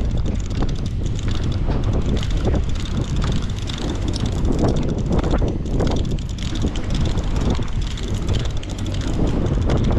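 Wind buffeting the microphone on the deck of a charter fishing boat at sea, over a steady low rumble.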